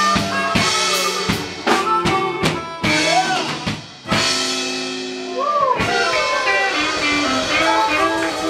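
Live electric blues band playing: drum kit strokes with rimshots for the first few seconds, a short break about four seconds in, then held lead notes that bend in pitch over a stepping bass line.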